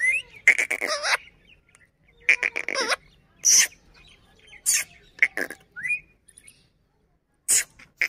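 Indian ringneck parakeet giving a series of short, shrill calls and chattering squawks, some with a quick warbling wobble in pitch, with short pauses between them.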